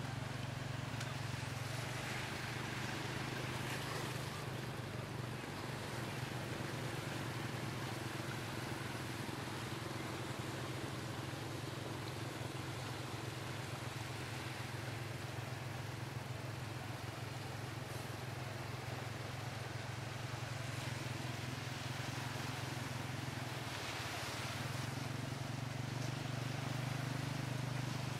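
Small motorcycle engine pulling a tuk-tuk, running steadily through flood water, over a steady wash of water and road noise. The engine note drops off briefly near the end.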